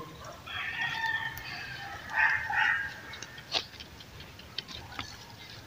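A rooster crows once, a long call of about two and a half seconds. A few short light clicks follow in the second half.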